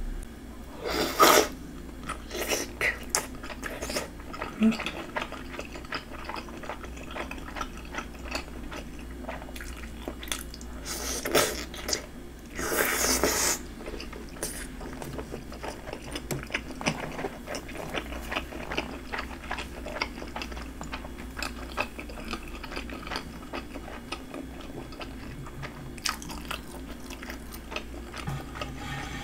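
Close-miked biting and chewing of skewered red fish cake in spicy sauce: soft wet mouth sounds and small clicks, with a few louder bursts, the longest about a second long a little before halfway.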